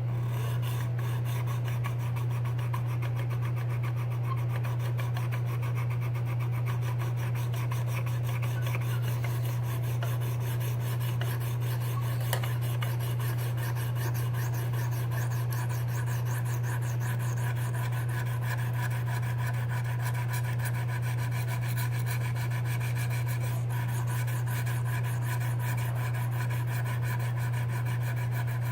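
Sharpening stone on a KME guided sharpening system rubbing back and forth along a steel knife blade, a continuous rasping of stroke after stroke. A steady low hum runs underneath.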